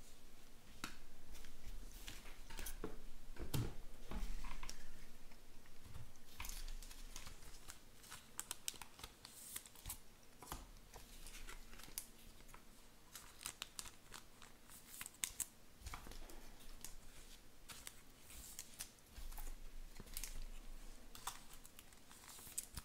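Trading cards being handled: irregular light clicks and scratchy slides as cards are flipped through, squared up and set down in stacks on a table.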